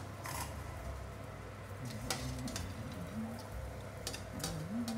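A few faint clinks of a metal ladle against a stainless steel saucepan of soup stock, over a low steady hum. Two short low wavering murmurs come about two seconds in and near the end.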